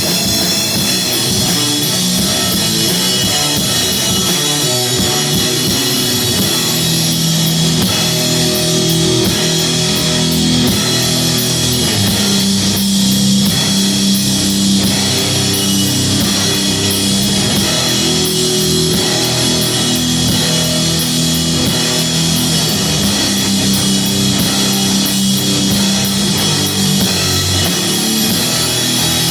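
Live heavy rock band playing loud: guitars and drum kit working through a slow riff of long held low notes under a steady wash of cymbals.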